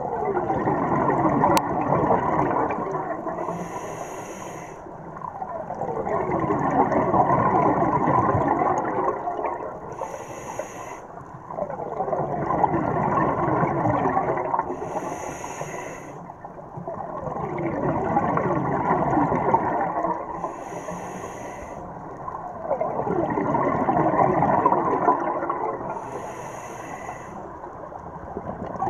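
A scuba diver breathing through a regulator underwater, about five breaths roughly every five to six seconds. Each breath is a short hiss on the inhale, then a few seconds of gurgling exhaust bubbles.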